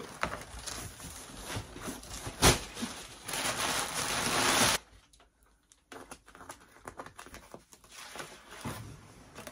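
Flat cardboard shipping boxes and crumpled kraft packing paper being handled as a carton is unpacked: rustling, scraping and sliding of card, with a sharp knock about two and a half seconds in. A louder stretch of rustling stops suddenly a little before halfway, followed by quieter, scattered handling sounds.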